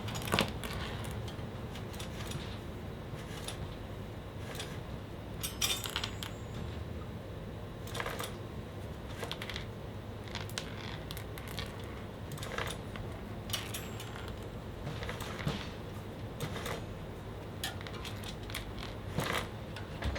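Irregular light metallic clicks over a steady low hum: a fat bike's chain on the spinning rear wheel, now and then ticking against the disc brake caliper it only barely clears.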